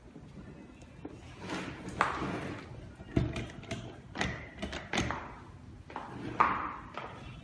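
Metal panels and parts of a fingerprint door lock being handled and fitted together on a wooden desk: irregular clicks, knocks and light clatters, a few of them sharp.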